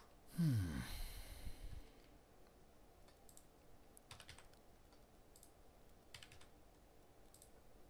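Computer keyboard keystrokes, faint and sparse, as an IP address is typed in. About half a second in there is a louder, brief vocal sound that falls in pitch.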